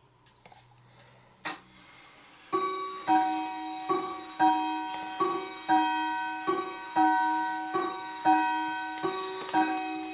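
Background music begins about two and a half seconds in: a gentle keyboard melody of struck notes that each fade away, about one and a half notes a second, after faint ticks and a single sharp click.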